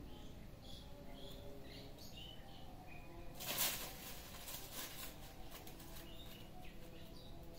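Dry dead leaves and twigs crackling and rustling as a kitten pounces into a pile of them, loudest in one burst about three and a half seconds in, with lighter rustles after. Faint bird chirps in the background.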